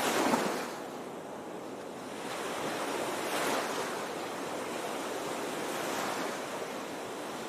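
Sea waves washing onto the shore, the surf swelling and falling back every two to three seconds.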